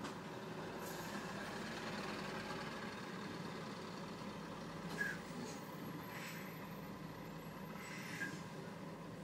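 Car engine idling steadily at about 900 rpm with the automatic gearbox in Park, heard from inside the cabin. Two brief higher-pitched chirps stand out, about five and eight seconds in.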